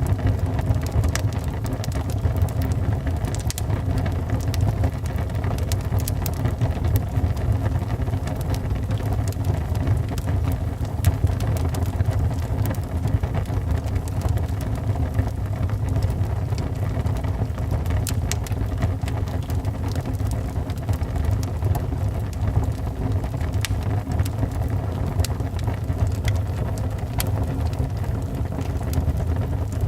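Wood fire burning in a fireplace: a steady low rumble of the flames with frequent small crackles and pops scattered throughout.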